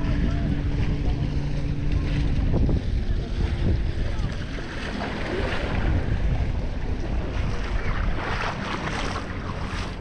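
Beach ambience dominated by wind buffeting the microphone, with small waves lapping and faint distant voices. A steady engine hum is heard until about three seconds in, then stops.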